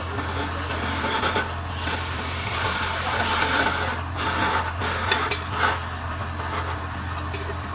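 Wood lathe running with a steady low hum while a hand-held turning chisel scrapes against the spinning wooden vase, a rough scraping noise that swells and eases as the tool is worked.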